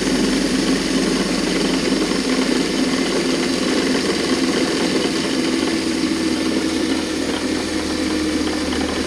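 Bench grinder running unloaded with a steady motor hum and whir.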